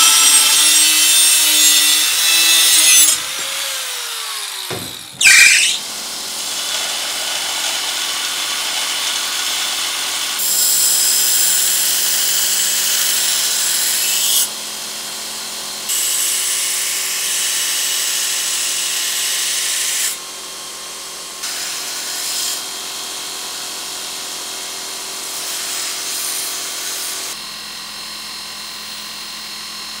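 An angle grinder's cut-off disc cutting through a steel blade blank held in a vise, with a high hissing grind. After about five seconds a belt grinder takes over, its motor running steadily while the blade is pressed to the abrasive belt in passes of a few seconds, louder while the steel is on the belt.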